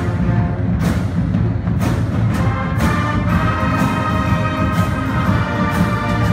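High-school pep band playing: the brass section, sousaphones included, holds loud chords over bass drum strokes that come about once a second.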